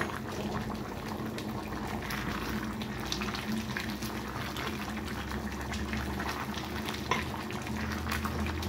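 A pot of beef and French-bean stew bubbling at a simmer, with many small pops, as a spatula stirs through it. A low steady hum runs underneath.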